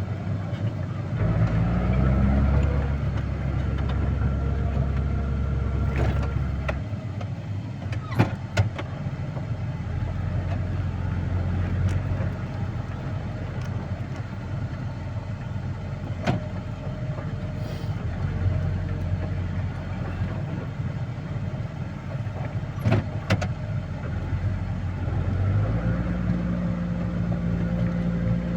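Heavy vehicle's engine running, its revs rising about a second in and again near the end, with a few sharp knocks along the way.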